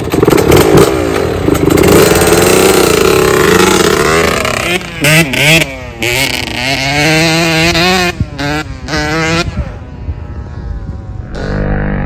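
Yamaha petrol dirt bike engine revving hard, its pitch rising and falling over and over as the throttle is worked. The sound breaks off abruptly several times in the middle and is quieter for a while before the engine comes back in near the end.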